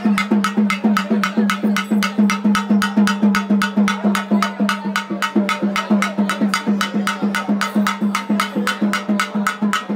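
Fast, even percussion beat of about five strokes a second, with a steady ringing tone under the strokes.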